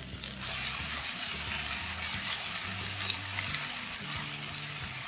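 Butter and olive oil frying with onion and garlic in a stainless steel pot as cubes of cabotiá squash are added: a steady sizzle with scattered small crackles.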